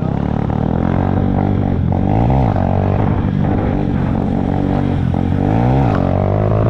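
Honda Fan's single-cylinder four-stroke engine running under way on a ride, its pitch dropping and climbing back twice.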